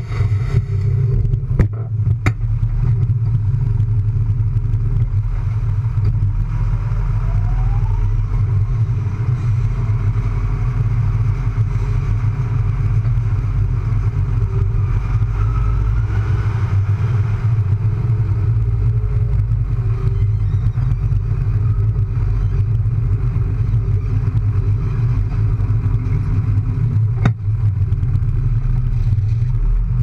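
Tractor diesel engine running steadily with a deep drone, heard up close from the front loader. A few sharp knocks, two near the start and one near the end.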